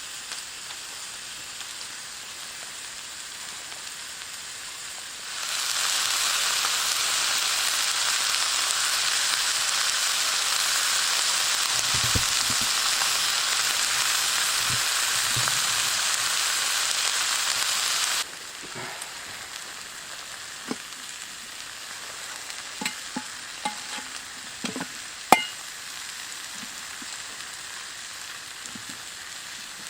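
Food sizzling in a frying pan. The sizzle gets much louder about five seconds in, cuts off abruptly about eighteen seconds in, and then carries on more quietly with scattered small clicks and knocks, one sharper click near the end.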